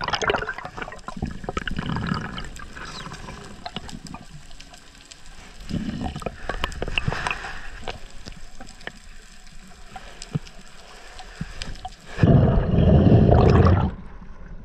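Underwater ambience recorded by a camera below the surface: water moving around the housing with scattered clicks and crackles. About twelve seconds in it cuts to the surface, where a loud rush of waves and wind on the microphone lasts about two seconds.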